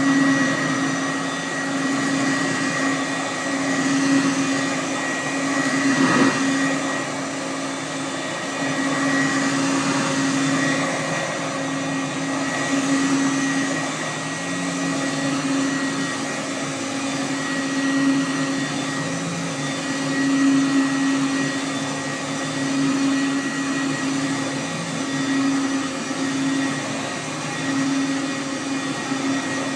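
Hoover Commercial U7071 upright vacuum cleaner running steadily: a continuous motor whine and hum that gently swells and eases every few seconds, with one brief knock about six seconds in.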